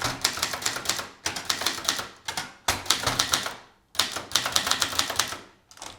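Keys of a 1977 Brother Deluxe 220 manual portable typewriter being struck in quick runs of clicks, with short pauses between the runs, as a short phrase is typed.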